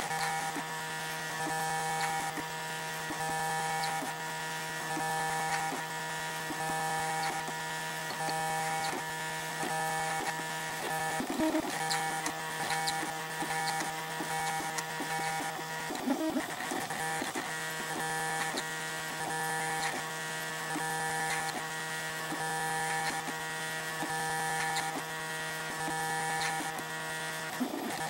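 FDM 3D printer at work: its motors whine in a steady set of tones while the print head lays down layers, with faint ticking throughout. The tones break and slide briefly twice, about 11 and 16 seconds in, as the head's movement changes.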